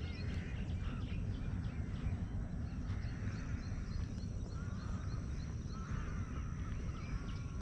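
Birds chirping and calling, with a steady low rumble underneath.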